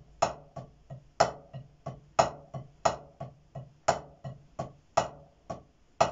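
Wooden drumsticks striking a practice pad in an accent exercise: even soft taps about three a second, with a louder accented stroke roughly once a second.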